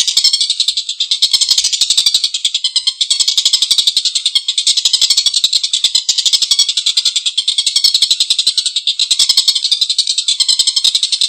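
Tengkek buto (collared kingfisher) giving a long, harsh, rapid cackling call: a fast run of rasping notes, many a second, broken only by brief pauses.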